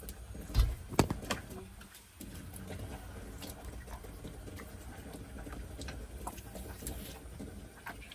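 Hands squeezing and kneading a raw octopus with flour in a stainless-steel colander to work off its slime: sticky wet squelches and irregular small clicks, with two sharp knocks about half a second and a second in.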